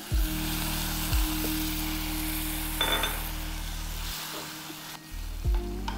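Food sizzling in hot oil in pans on a gas stove, with a wooden spatula stirring and a light clink near the middle. Soft background music with steady low notes runs underneath.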